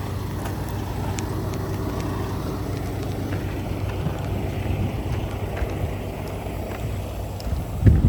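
Heavy diesel engine idling steadily. Near the end come a few loud low thumps.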